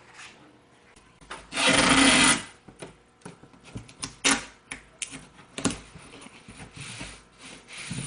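Tape pulled off the roll in one loud rip of about a second, followed by scattered rustling and knocking of cardboard being handled.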